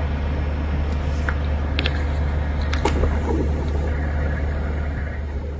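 A steady low rumble, with a few light clicks and a faint splash as a small crucian carp is lifted out of the water on a float rig.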